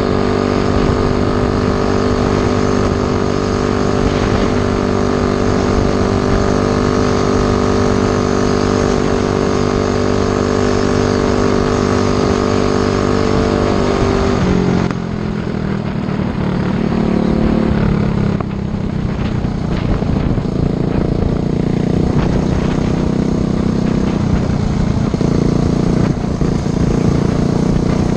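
Coleman CT100U mini bike's Predator 212 Hemi single-cylinder four-stroke engine running at high revs under way. About halfway the revs drop sharply, dip again a few seconds later, then pick back up and hold.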